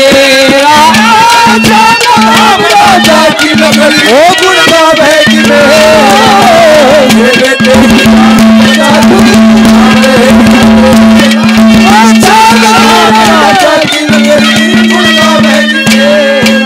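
Haryanvi ragni folk song: a young male singer's voice, amplified through a microphone and loudspeakers, with a harmonium holding a steady drone note and hand-drum strokes underneath. The drone drops out briefly twice, about four seconds in and again near fourteen seconds.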